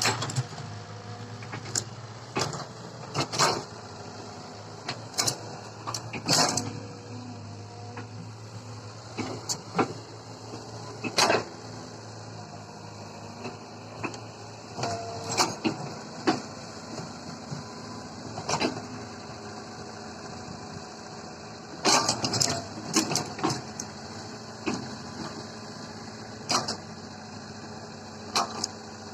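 Heavy diesel machinery running steadily at a low, even pitch, with irregular sharp knocks and clanks scattered throughout, a dozen or more, some in quick clusters.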